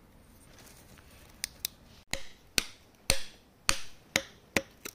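Metal tool striking rock: two light clicks, then a run of sharp strikes about two a second beginning about two seconds in, each with a brief ring.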